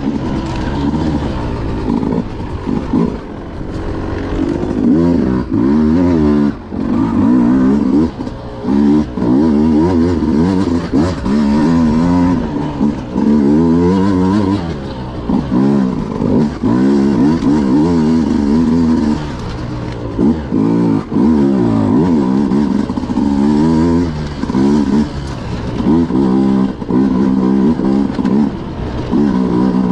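Beta RR 200 two-stroke enduro motorcycle engine revving up and down over and over as the throttle is opened and closed, heard close from the bike itself.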